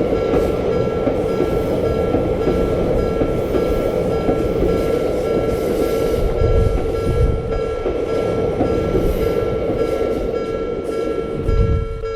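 A train running on the rails, with a steady rumble and a steady hum.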